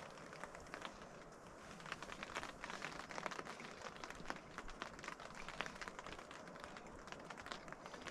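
Light rain pattering on the canvas of a tent: a dense, irregular scatter of small ticks over a faint hiss.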